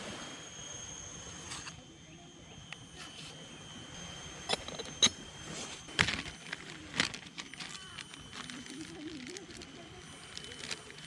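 Crinkling and sharp clicks of a plastic zip-lock bag of ground coffee being opened and handled, the loudest clicks clustered in the middle.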